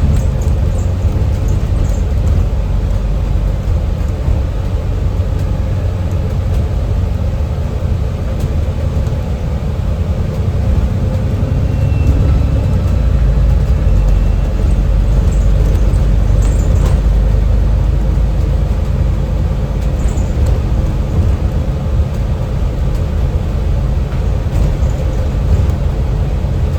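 Alexander Dennis Enviro 400MMC double-decker bus under way, heard from inside: steady low engine and road rumble with the heater fans running, and a faint turbo whistle comes in about halfway through.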